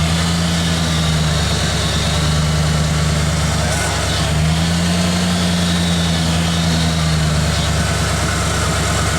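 Freshly rebuilt engine of a 1987 Ford Bronco idling steadily on its first run after being installed.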